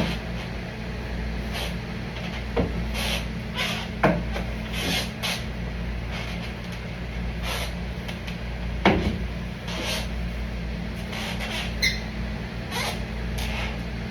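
Scattered small knocks and clicks at irregular intervals over a steady low hum, with sharper knocks at the start and about nine seconds in.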